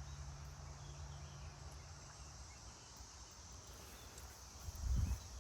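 Quiet outdoor garden ambience: a steady high chirring of insects over a low rumble, with a low hum for the first couple of seconds. A footstep thumps on the ground near the end.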